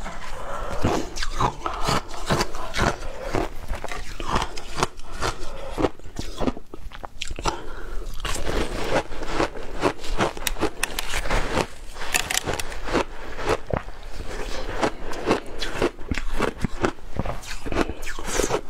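Frozen ice block bitten and chewed close to a clip-on microphone: a dense run of sharp crunches, several a second, as the ice breaks between the teeth.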